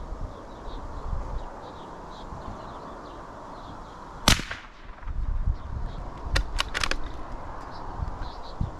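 A single shot from a Ruger bolt-action .22LR rifle about four seconds in, one sharp crack. About two seconds later comes a quick run of four or five metallic clicks, the bolt being worked to eject the spent case and chamber the next round.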